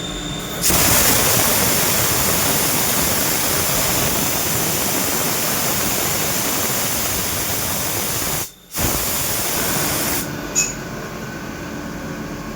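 Loud, steady spraying hiss that starts about half a second in, cuts out briefly and then stops about ten seconds in, leaving a quieter mechanical hum.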